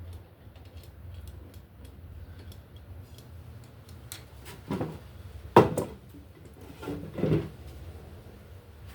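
Metal parts of a paint spray gun handled on a workbench: a few light clicks, then several clinks and knocks near the middle, the sharpest a little past halfway.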